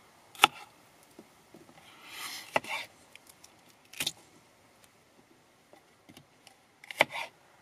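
A combat knife cutting red bell peppers on a wooden cutting board: four separate sharp knocks of the blade hitting the board, spaced a second or more apart, with a soft scrape of pepper pieces being moved a couple of seconds in.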